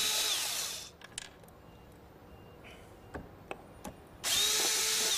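Cordless electric screwdriver whirring as it drives a Phillips screw out of the plastic door-trim bracket, stopping about a second in. A few small clicks follow, then the screwdriver runs again near the end, its whine rising as it spins up.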